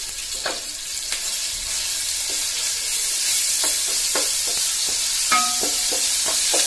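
Ginger-garlic paste sizzling in hot ghee and oil in a steel pot, stirred with a wooden spatula that knocks and scrapes lightly against the pot. The sizzle grows louder from about a second in.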